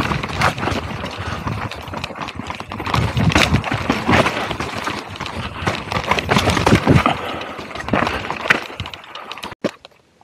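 Mountain bike descending a dry, rocky dirt trail: tyres grinding over dirt and stones, with the bike rattling and knocking irregularly over each bump. The sound cuts out abruptly near the end.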